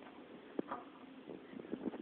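Faint handling noise: soft rustling with a few small clicks, about half a second in and again near the end.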